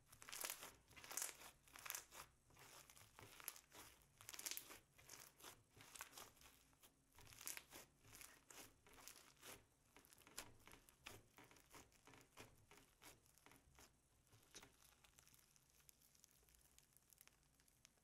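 Hands kneading and squeezing slime packed with small foam beads: a run of soft crackles and crunches, busiest in the first half and thinning out near the end.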